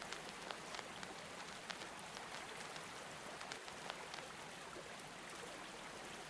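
Faint, steady hiss of falling water, like rain, with many small scattered clicks and crackles.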